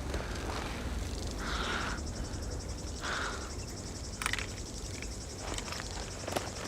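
Insects chirring steadily in a fast, fine pulse over a low rumble, with two short soft rushing sounds about a second and a half apart.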